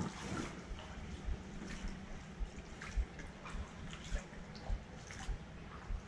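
Shallow creek water trickling and splashing around wading feet, with dull thumps of steps roughly every half second.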